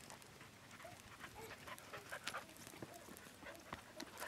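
Faint panting of a dog, with scattered small clicks and crunches.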